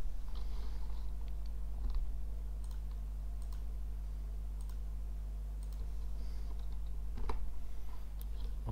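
Scattered clicks of a computer mouse and keyboard, with louder clicks about two seconds in and about seven seconds in, over a steady low electrical hum.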